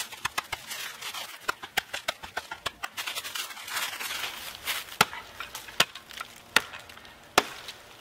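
Steel shovel-head blade of a Crovel Extreme II multitool chopping into a small tree trunk like an axe: a run of lighter knocks, then four heavy blows about a second apart in the second half. A stretch of rustling in dry leaves comes near the middle.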